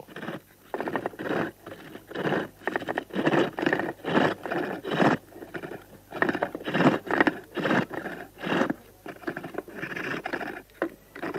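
Wooden bow lathe at work: a chisel scraping the turning wood in short rasping strokes, about two a second, as the bow is drawn to and fro.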